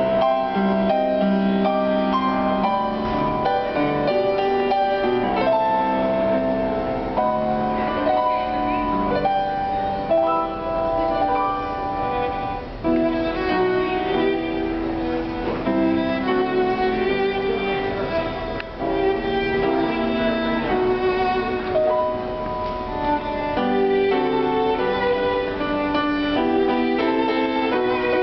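A viola and a grand piano playing a classical piece together live, the viola's long bowed notes over piano accompaniment.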